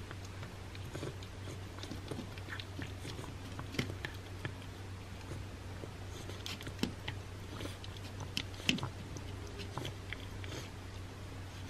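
A cat licking and eating a churu treat off a plate: irregular wet smacks and tongue clicks, over a steady low hum. He sounds congested, breathing through a stuffy nose as he eats.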